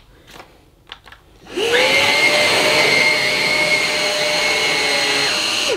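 Numatic Quick cordless bagged vacuum cleaner switched on about a second and a half in: its motor spins up with a rising whine, runs steadily with a high-pitched whine over a rushing noise, and is switched off near the end.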